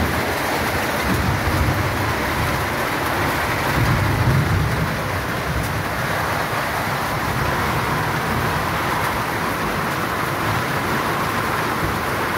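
Hailstorm: rain and hailstones falling heavily and steadily, a dense even hiss, with a low rumble swelling around four seconds in.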